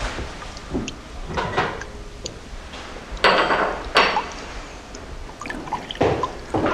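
Water from a kitchen tap splashing into a steel sink in several short spurts, with light clinks of dishes between them.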